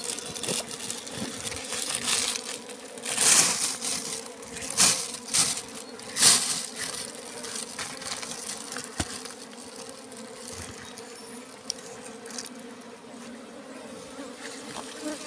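Steady buzzing hum of a colony of wild honeybees clustered on their comb. A few loud bursts of noise break in between about three and six seconds in.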